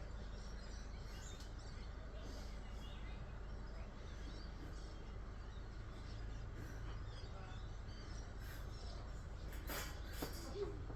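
Quiet background ambience: a steady low hum with faint bird chirps scattered through it and a few soft clicks near the end.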